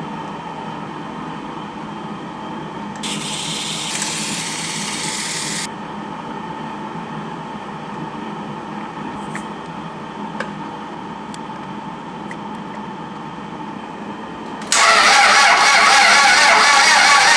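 Toyota MR2 SW20 engine running steadily, with a hiss that comes in for a few seconds early on. Near the end, loud guitar music cuts in over it.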